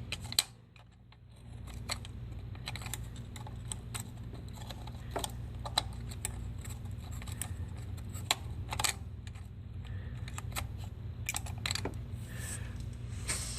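Scattered clicks and light knocks of hands handling parts in an engine bay, over a steady low hum.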